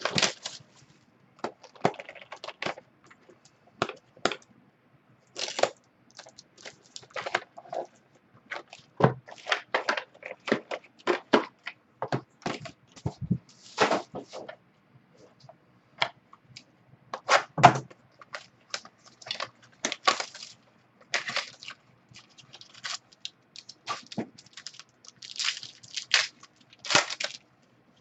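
Plastic wrapping on sealed trading-card product crinkling and tearing under the hands, in irregular crackles and rustles.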